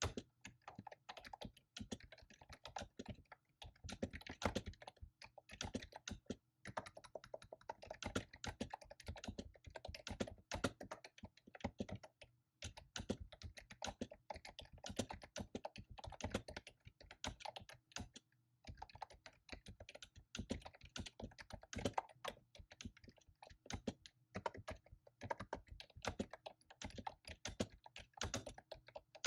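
Fast typing on a computer keyboard: dense runs of keystroke clicks with a few short pauses between bursts.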